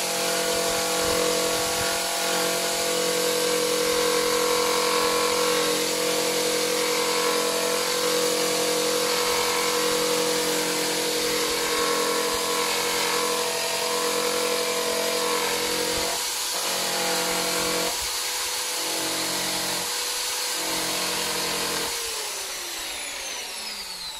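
Handheld straight grinder with a sanding disc running at speed, grinding paint and filler off a car's wheel arch down to the metal. Near the end it cuts out briefly three times, then spins down with a falling whine.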